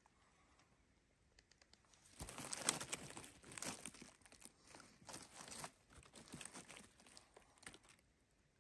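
Dry leaf litter and twigs rustling and crackling as fingers brush them aside from around a porcino mushroom. The sound comes in irregular bursts with small sharp snaps, starting about two seconds in and stopping near the end.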